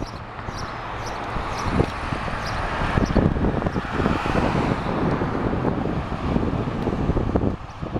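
A car passing on the road, its tyre and engine noise swelling to a peak around the middle and then fading, with wind buffeting the microphone.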